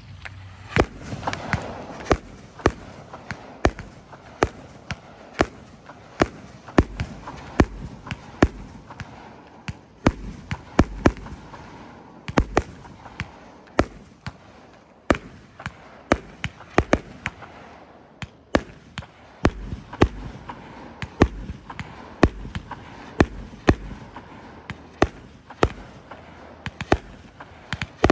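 49-shot consumer firework cake firing in steady succession: sharp launch and burst reports about one to two a second, with a hiss between them.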